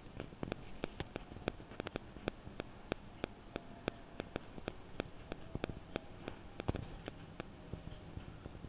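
Metal spatula clicking and scraping against an aluminium kadai as a thick cashew, poppy-seed and tomato paste is stirred while it fries on low flame: quick irregular knocks, several a second, over a faint hiss.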